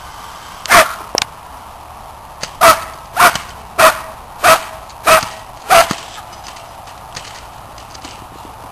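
A dog barking sharply seven times: one bark about a second in, then six in an even series a little over half a second apart, ending around two-thirds of the way through.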